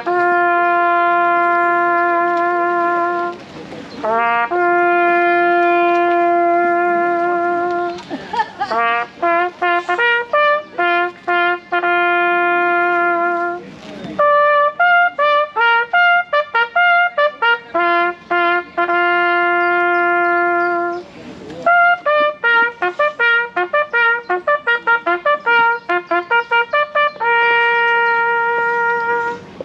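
A bugle call played on a single brass horn: long held notes alternating with quick runs of short, tongued repeated notes, moving among only a handful of pitches.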